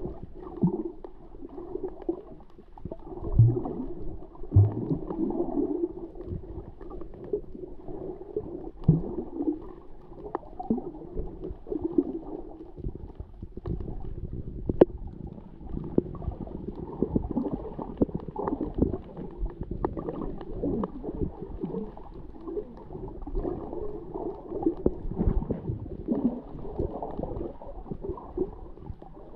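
Muffled underwater sound picked up by a submerged camera: water swishing and gurgling, with a few low thuds and scattered small ticks.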